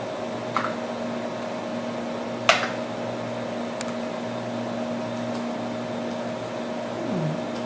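Steady hum of a running Xerox Alto computer, its cooling fans and spinning disk drive, with a few steady tones in it. Two sharp clicks break through, about half a second and two and a half seconds in.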